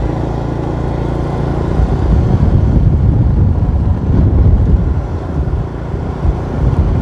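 Motorcycle running on the move. Its engine is a low, steady hum for about the first second, then sits under an uneven low rumble.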